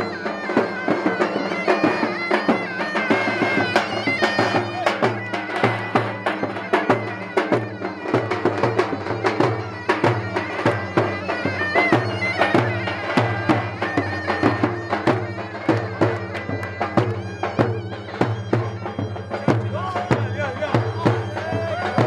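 Traditional folk music: a reedy wind instrument playing a melody over a steady low drone and a regular drum beat.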